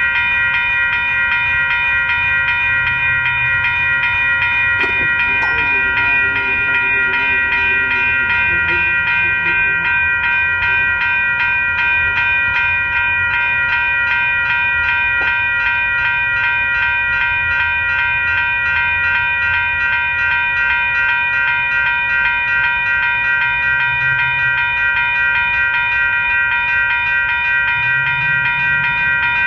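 Railway level crossing warning bell ringing without a break, its rapid, even strokes blending into a steady ring.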